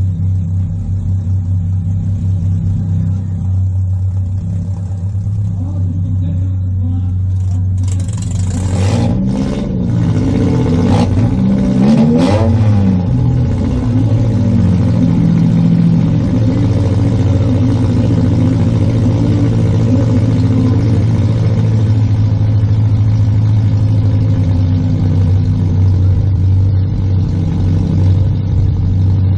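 Demolition-derby car's engine running, heard from inside the stripped cabin. About eight seconds in it revs up and down with a few sharp knocks, then runs louder and steady under throttle.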